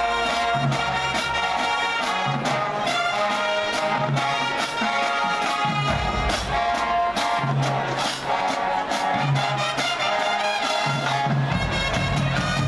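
High school marching band playing a brass-heavy tune, with loud horn chords over sharp drum hits and a repeating low bass line.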